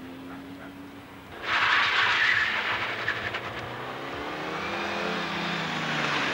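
A small hatchback's engine idling, then revving hard as the car launches about a second and a half in. It accelerates through a cone course, the engine pitch rising and then falling.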